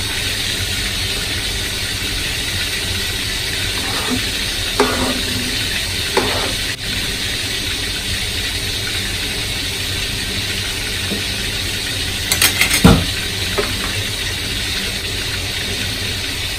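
Steady sizzling hiss of cooking oil frying and a pan boiling on a gas stove. A spoon and a wooden spatula stir and clink against the pan, with a few knocks and a quick run of clinks ending in the loudest knock about thirteen seconds in.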